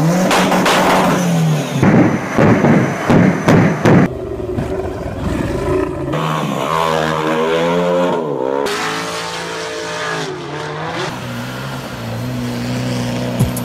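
Off-road 4x4's engine revving hard, its pitch sweeping up and down repeatedly as the vehicle spins on gravel. Loud knocks and rattles come in the first few seconds.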